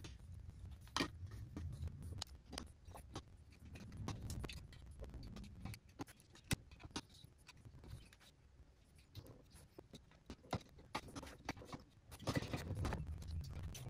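Scattered clicks and light metallic knocks over a low rumbling handling noise, as a piston and finned cylinder barrels are handled and set onto an engine crankcase on a workbench; the handling gets busier near the end.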